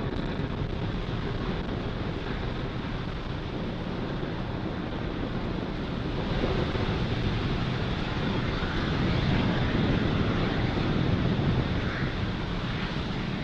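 Falcon 9's first stage firing its nine Merlin 1D engines during ascent: a steady, deep rushing rumble that swells a little about two thirds of the way through.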